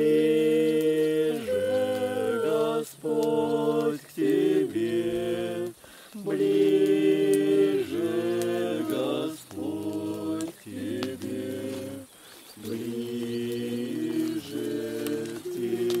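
A small mixed group of men's and women's voices singing together unaccompanied, in long held notes with short breaks between phrases.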